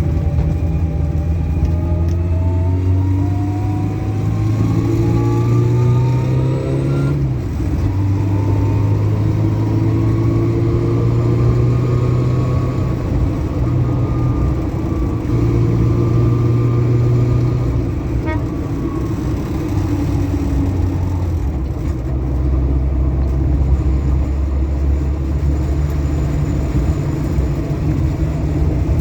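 Keeway RKV 125 motorcycle's single-cylinder four-stroke engine under way. Its note climbs, drops at a gear change about seven seconds in, then climbs and settles again, with further shifts later.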